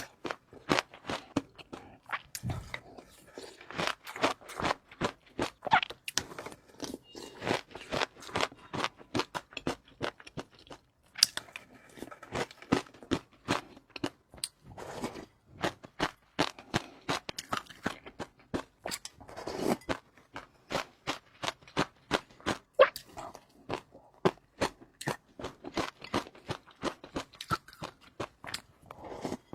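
Close-miked eating: crunchy chewing, with many short sharp crunches a second, irregular and unbroken.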